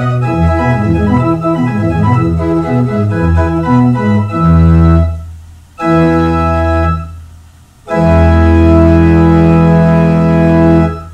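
Single-manual, two-stop Positiv pipe organ playing quick running notes, then a held chord about four and a half seconds in, another about six seconds in, and a final long chord from about eight seconds that ends near the end.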